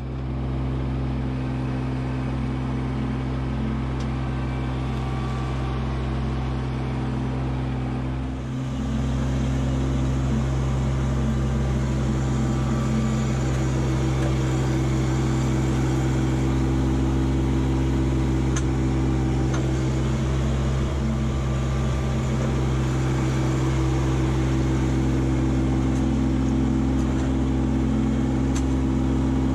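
Kubota LX2610 compact tractor's three-cylinder diesel engine running at a steady speed while the front-loader root rake grapple works on granite boulders. It gets louder about eight seconds in.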